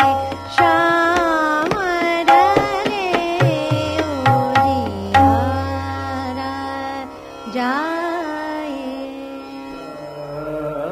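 Hindustani classical vocal music in raga Hansadhwani: a singer's gliding vowel runs with no words, over tabla strokes and a steady tanpura drone.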